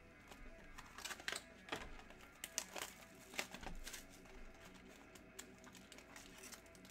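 Irregular clicks, taps and crinkles of sealed trading-card boxes and plastic-wrapped packs being handled, over faint background music.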